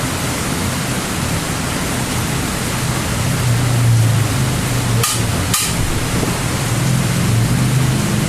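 Steady hiss with a low hum underneath, broken by two sharp clicks about half a second apart a little past the middle.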